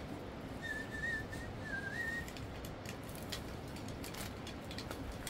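A person whistling a short wavering tune about a second in, over the steady rush of river water. Light clicks and rustles follow in the second half, from the nylon cast net being handled.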